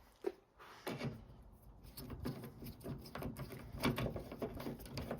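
Faint, scattered light clicks and knocks, like handling noise, after a near-silent first second.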